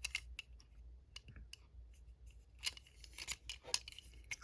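Small plastic toy cars being handled, giving faint scattered clicks and short rustles, busiest from a little under three seconds in to nearly four.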